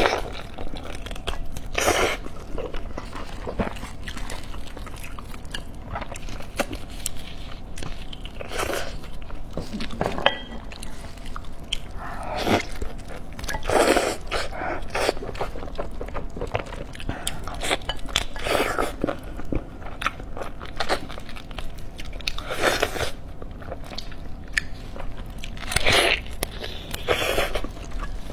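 Close-miked eating of braised lamb ribs: chewing and biting, with louder wet mouth noises every few seconds.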